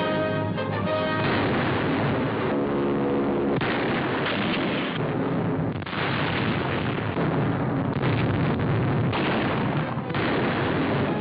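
Bombs exploding on an old newsreel soundtrack: dense, noisy blasts one after another from about a second in, with orchestral music under them that shows through briefly.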